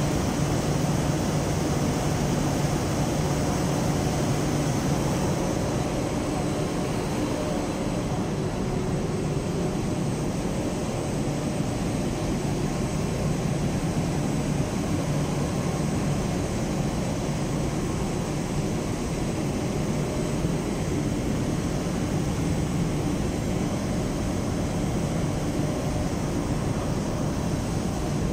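A line of textile raising (napping) machines running, their wire-clothed drums brushing cotton/polyester fleece. The result is a loud, steady mechanical drone with a low hum.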